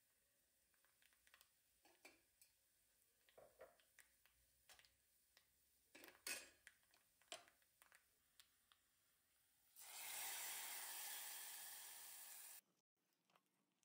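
Hot coconut-oil tempering of mustard seeds, dried red chillies, curry leaves and shallots poured into a clay pot of curry, sizzling for about three seconds from about ten seconds in and cutting off sharply. Before it, scattered faint clicks and taps from the small steel tempering pan.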